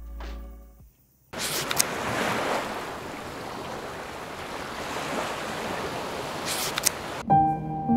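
Ocean waves: a steady rush of sea water and surf noise that swells and eases. Music fades out just before it and starts again near the end.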